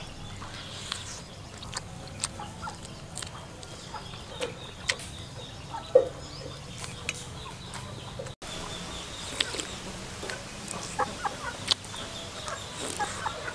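Chickens clucking in the background, with scattered short clicks and smacks of someone eating by mouth.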